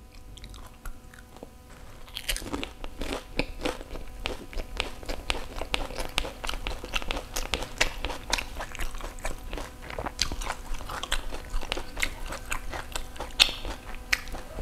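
Crisp fried pani puri shell bitten and chewed: a crunchy bite about two seconds in, then steady dense crackly crunching as it is chewed.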